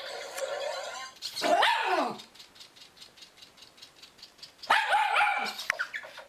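A dog barking at a four-legged robotic toy, in two bouts about a second in and again near five seconds, with faint rapid ticking between the bouts.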